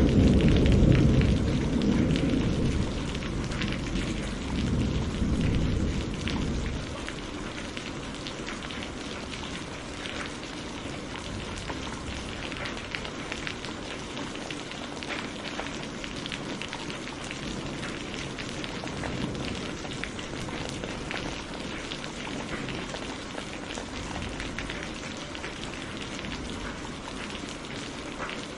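Rolling thunder rumbles and dies away over the first six or seven seconds. Behind it, steady rain falls on a surface, with individual drops pattering.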